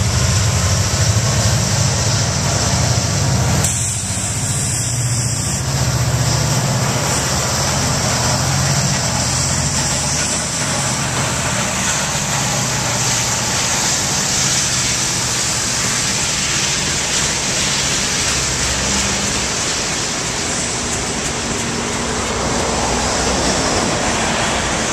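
Diesel-electric freight locomotives, among them a GE AC44CW, running past with a loud low engine drone that fades out about halfway through. The steady rumble and rattle of freight cars rolling by on the rails follows.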